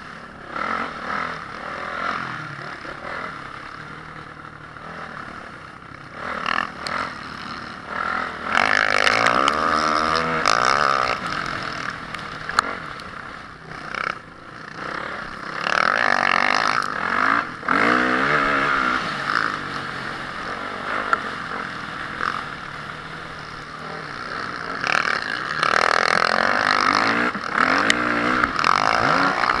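Honda CRF450R motocross bike's single-cylinder four-stroke engine revving hard in repeated surges and easing off between them, its pitch rising and falling. The loudest surges come about a third of the way in, around the middle, and near the end.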